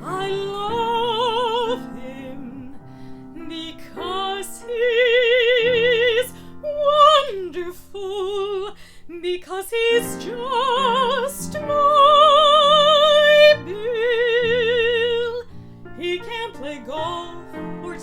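A woman singing in a classical, operatic style, holding several long notes with wide vibrato over a piano accompaniment.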